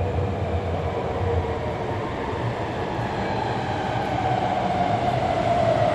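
Alstom Metropolis metro train pulling into the station and slowing. A steady rumble runs under a whine that slowly falls in pitch as it slows.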